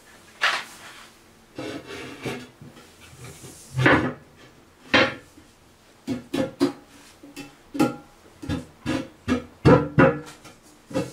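Acoustic guitar music: plucked notes and chords at an uneven pace, sparse at first and busier from about six seconds in.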